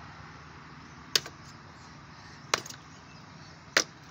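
Axe chopping into a log that is partly split: three sharp strikes about a second and a quarter apart.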